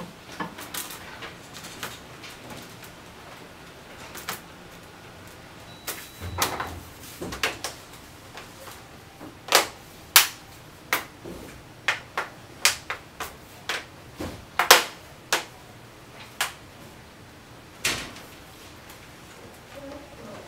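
Sharp, irregular clicks and knocks from handling a Dell Latitude E5480 laptop and its parts on a desk, loudest around the middle.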